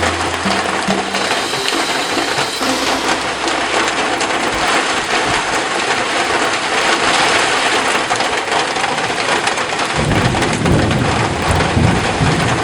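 Heavy monsoon rain pouring down in a dense, steady hiss. About ten seconds in, a deep low rumble joins it.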